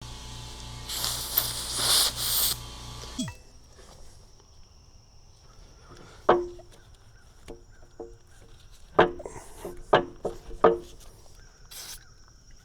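Kubota L35 backhoe's diesel engine running with a loud hiss over a pulsing low hum, then winding down in pitch and stopping about three seconds in. Afterwards come several sharp metallic clinks with short ringing, as of tools or pins knocking on steel.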